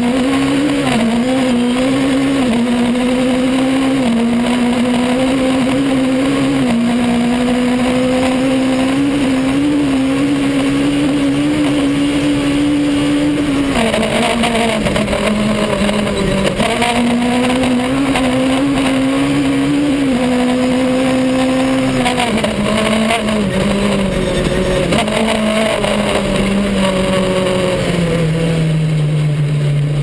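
Honda S2000 four-cylinder engine of a Fouquet four-wheel-drive rally car, heard from inside the cockpit, running hard at high revs. Its pitch dips and steps several times as the car is driven flat out on a dirt stage, then falls steadily near the end as the car slows.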